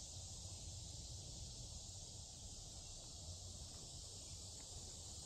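A steady high-pitched insect chorus, with a low rumble beneath it.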